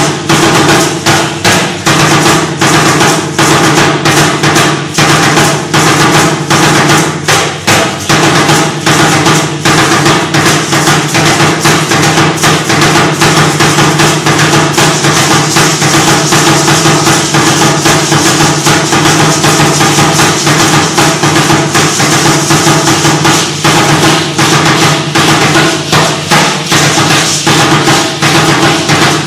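Huehuetl, a tall upright Aztec drum, beaten in a fast, steady rhythm of rapid strikes that marks the dancers' steps.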